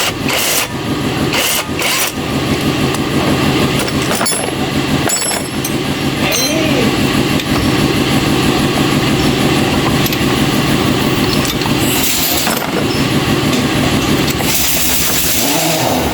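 An engine running steadily, with several sharp clicks in the first few seconds.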